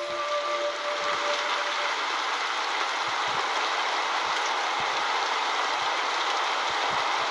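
Steady rain falling, an even hiss with a few faint low taps of drops. A held music note fades out in the first two seconds.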